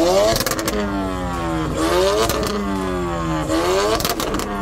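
A car engine revved hard through a loud exhaust, three times: the pitch climbs quickly and falls back more slowly each time, with sharp cracks near the top of the revs.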